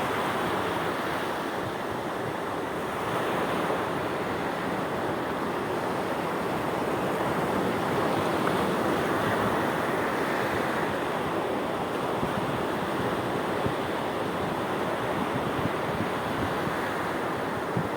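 Sea waves washing in continuously, a steady surf noise that swells louder a few seconds in and again near the middle.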